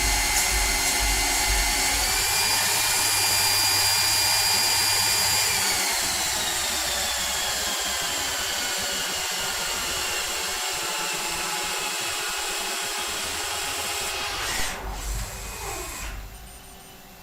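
CNC lathe running and cutting, a steady whine over cutting hiss that steps up in pitch about two seconds in, then glides down over several seconds as the spindle slows. A knock comes near the end, and the machine sound then falls away.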